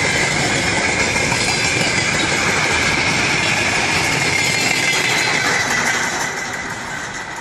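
Train rolling past on the rails: a steady rumble of wheels with a constant high whine, fading away near the end as the train moves off.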